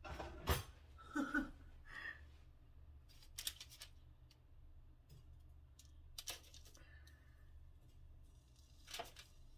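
Kitchen tongs clicking and tapping as breaded onion rings are picked up and set into an air fryer basket: a handful of scattered short clicks, the sharpest about half a second in and another near the end.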